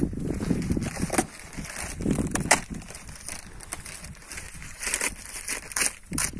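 Plastic wrapping crinkling and rustling as wrapped packages are handled and pulled at, with scattered sharp clicks and knocks.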